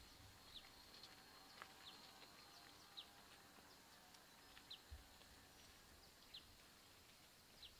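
Near silence with a faint bird chirping: short, high notes falling in pitch, about every one to two seconds. A soft low thump comes about five seconds in.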